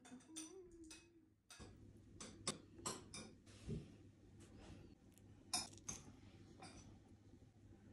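Faint, scattered clicks and taps of wooden chopsticks against the plate and the sauce bowl as a piece of breaded pork cutlet is picked up and dipped, over a low steady hum.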